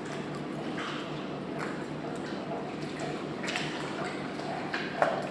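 Water lapping in short, irregular splashes at the surface, over a steady low hum, with one sharp knock near the end.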